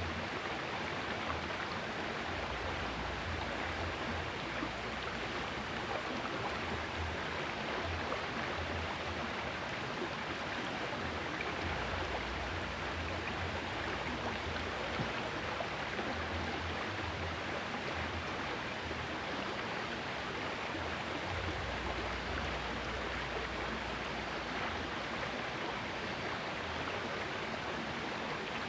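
Small river running steadily, an even rush of flowing water, with low rumbles that come and go underneath.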